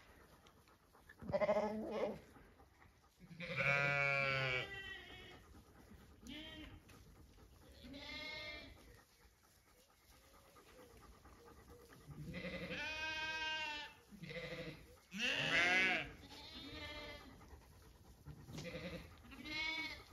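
Zwartbles sheep bleating: about nine separate calls in a row, some deep and some higher-pitched, the longest lasting nearly two seconds.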